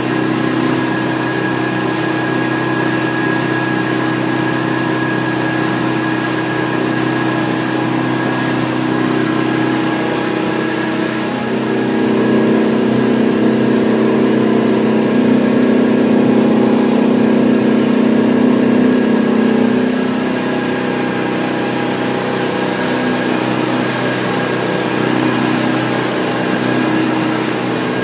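The engine of a Hardy Navigator motor boat runs steadily under way, heard from inside the wheelhouse. Its hum swells louder for several seconds in the middle, then settles back.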